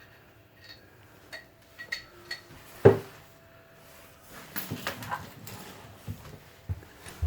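Pipe wrench clinking and knocking against a galvanized drain pipe as it is set and adjusted on the fitting: scattered light metal clinks, one louder knock about three seconds in, and a short clatter a little later.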